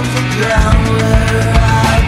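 Background rock music with heavy drums and distorted guitars, a steady beat.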